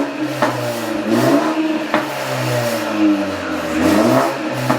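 Turbocharged BMW 330's engine being revved repeatedly in short blips, rising and falling in pitch, with a couple of sharp exhaust pops on the way down. The pops are louder with the new charge pipe fitted.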